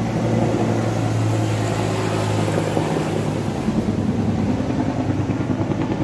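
Helicopter flying overhead, a really noisy steady drone of rotor and engine with a low hum.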